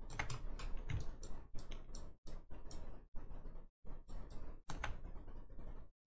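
Quick, irregular clicking of computer keys and mouse buttons, several clicks a second.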